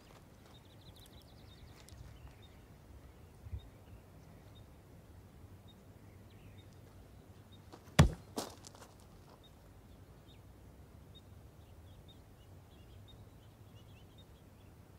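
A hard kick: one sharp, loud smack about halfway through, then a weaker knock just after, over faint outdoor ambience with small high chirps.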